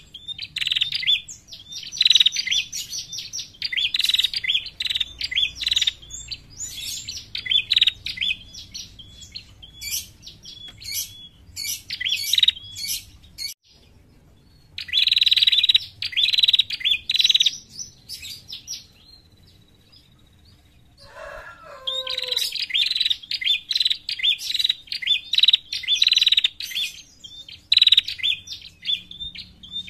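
Female prenjak calling in rapid runs of sharp, high chirps. The calls break off for a few seconds past the middle, with a brief lower, falling sound near the end of the break, then start again. This is the call used as a lure to draw wild prenjak in.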